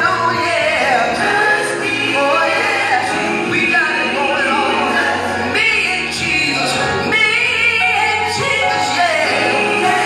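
A man singing a gospel song into a microphone, with long held notes and vocal runs that bend up and down, over steady musical accompaniment.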